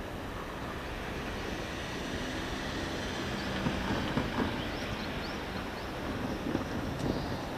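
Diesel railcar engine running steadily with a low hum, slightly louder for a moment in the middle.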